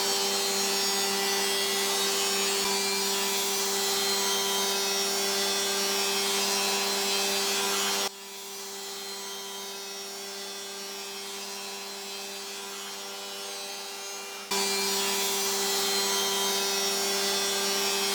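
Rod dowel machine running steadily as it mills wood: a constant hum with a hiss of cutting over it. About eight seconds in it abruptly turns quieter, and some six seconds later it returns to full level.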